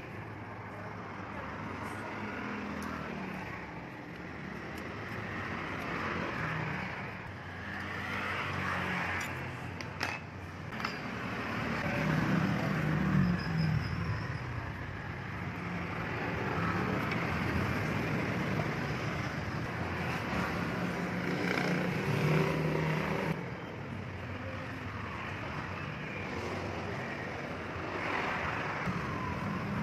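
Background road traffic: motor vehicles running past, the engine noise swelling and fading.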